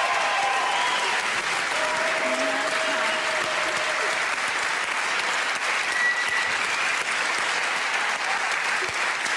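Studio audience applauding steadily, with a few voices calling out over the clapping.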